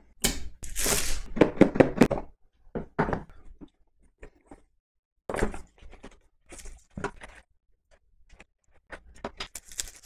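Cardboard product packaging being cut and opened by hand: a dense run of scraping and rustling in the first two seconds, then scattered knocks and short paper and plastic rustles as parts are lifted out and set down on a wooden table.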